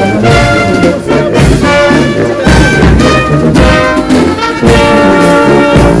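Brass marching band playing a tune, with tuba and other brass over regular drum beats. It is loud, and the music breaks off abruptly at the very end.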